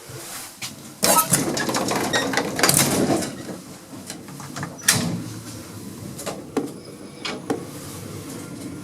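Old gated passenger lift's metal gate and doors being worked: a sharp clank about a second in, a few seconds of rattling and sliding, then a run of single clicks and clunks from the lift mechanism.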